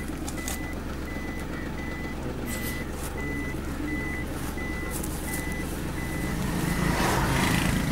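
A vehicle's reversing alarm beeping at one steady pitch, about three beeps every two seconds, over a low engine hum. The beeping stops about six and a half seconds in, and a swell of louder noise follows near the end.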